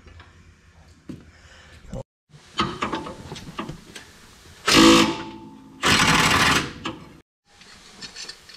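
Power wrench run in two short bursts on the motor mount bolts, the second about a second long, with clicks and clanks of tools and parts before and between.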